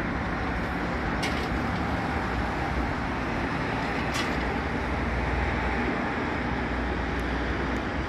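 Steady road traffic noise from cars and a bus passing along a multi-lane city avenue.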